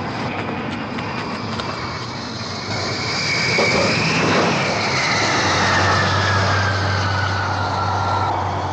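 Jet aircraft engines running with a loud rushing noise and a high whine that rises to a peak about four seconds in, then slides steadily down in pitch. A low steady hum joins about halfway through.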